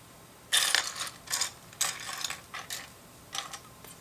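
Loose LEGO plastic pieces clattering and clicking on a tabletop as hands sort through them and pick one up: about five short rattling bursts, the loudest about half a second in.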